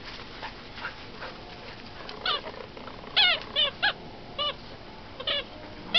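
Standard poodle puppies yipping: about six short, high-pitched yips with a falling pitch, starting about two seconds in and coming in a quick cluster through the second half.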